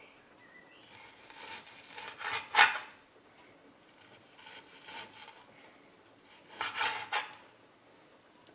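Kitchen knife slicing raw beef steak into cubes: short sawing strokes that scrape on the cutting board, in three groups, the loudest a sharp stroke about two and a half seconds in.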